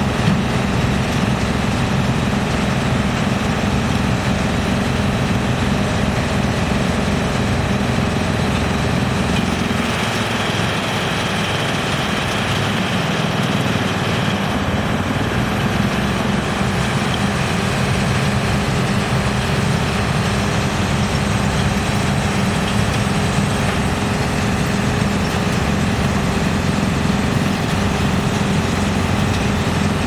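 Large electric drum wood chipper running steadily while chipping oil palm wood, with an excavator's diesel engine running alongside. From about ten to sixteen seconds in, the deep rumble weakens and a higher hiss comes up.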